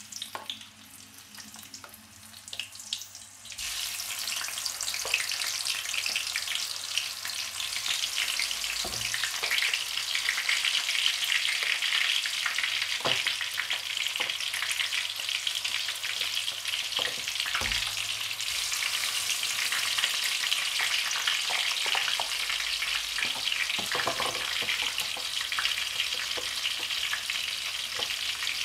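Tofu frying in hot oil in a wok: a steady crackling sizzle of bubbling oil that grows louder about three and a half seconds in and then holds. A few soft knocks sound now and then.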